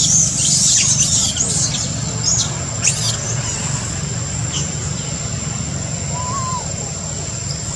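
Outdoor ambience: a steady low rumble under a thin, steady high-pitched whine. Short high chirps come in the first few seconds, and one short rising-and-falling call comes about six seconds in.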